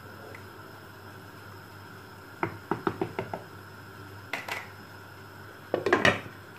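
A quick run of light knocks against a cooking pot, then a glass pot lid clattering as it is set on the pot near the end.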